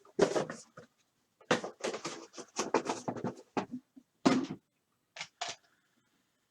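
A cardboard trading-card box being opened and its packaging handled: a quick run of short rustles, scrapes and knocks over the first four seconds or so, then two more brief ones near the end.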